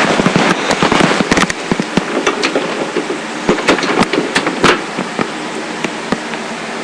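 Laptop being closed and carried, its built-in microphone picking up a rapid irregular string of knocks and clicks from handling. The knocks thin out about five seconds in, leaving a steady hiss.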